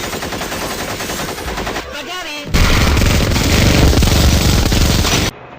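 Rapid automatic machine-gun fire rattling in a fast even stream. About two and a half seconds in it gets louder and denser, then cuts off abruptly near the end.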